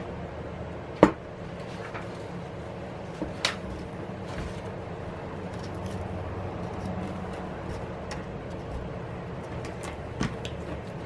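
Sharp clicks and ticks of a thin prying tool against the iPad Pro's glass screen and aluminium frame as the glued screen is pried loose along its edge: one loud click about a second in, a couple of smaller ones about three and a half seconds in, and another near the end, over a steady low hum.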